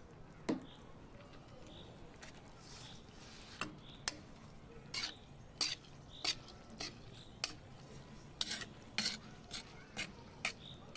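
Metal ladle stirring raw basmati rice in broth in a large aluminium pot, scraping and clinking against the pot's side in a series of sharp strokes. There is one stroke about half a second in, and the strokes come more often in the second half.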